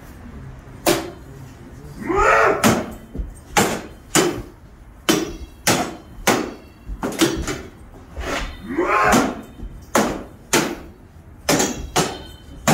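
Swords clashing in a staged duel: a string of sharp, irregular blows, some ringing like metal on metal. A voice cries out twice, about two seconds in and again near the middle.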